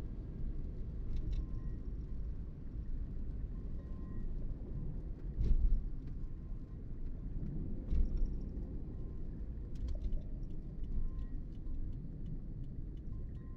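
Steady low rumble of a car's road and tyre noise while driving, with two louder low thumps about five and a half and eight seconds in.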